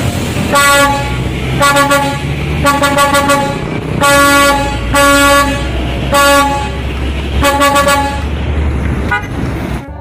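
Heavy truck's air horn sounding in a series of short blasts, roughly one a second, some in quick succession, over the low rumble of the truck's diesel engine as it drives by.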